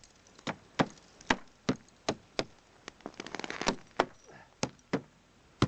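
Sharp knocks, about two or three a second, of ice and packed snow being chipped off a Buran snowmobile, with a quick run of scraping ticks about three seconds in.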